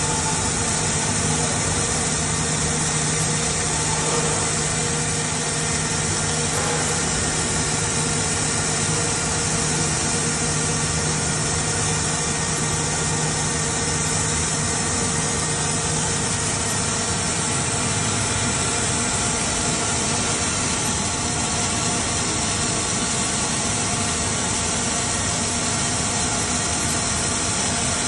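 Two robotic arc-welding torches of a Panasonic welding cell welding a steel drum, giving a steady, unbroken hiss. A low hum under it drops out about halfway through.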